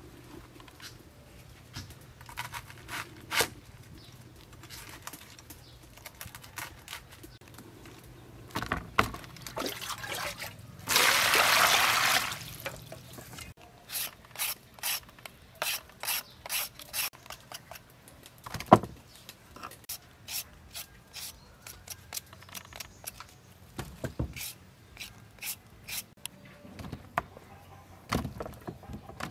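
Vegetable preparation on a wooden chopping board: scattered knocks and scrapes, and a loud rushing noise lasting about a second and a half, about eleven seconds in. Then a julienne peeler scrapes down a carrot in quick even strokes, about two a second. Near the end, limes drop into a bowl of water.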